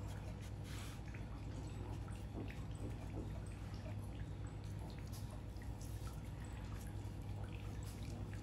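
Steady low hum with many faint, scattered clicks and ticks.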